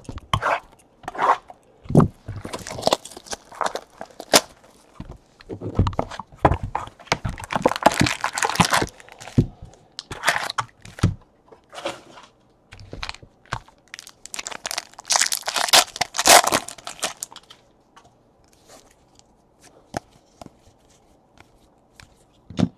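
Foil wrappers of Panini Contenders Draft Picks football card packs being crinkled and torn open, along with a cardboard card box being handled. The crackling comes in irregular bursts, loudest in two stretches about a third and two thirds of the way through, and dies down to faint rustling near the end.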